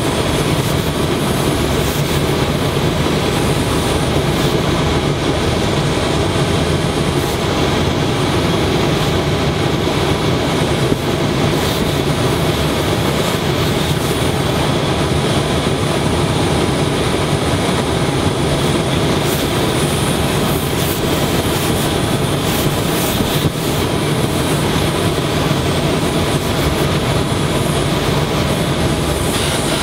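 Steady machine drone and hiss from industrial steam-ironing equipment: a hose-fed steam iron being worked over a T-shirt on a padded ironing table.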